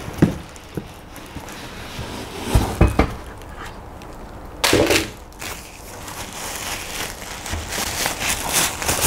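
Thin plastic bag rustling and crinkling as a wrapped device is lifted out of its box and handled, with a couple of dull knocks about two and a half to three seconds in.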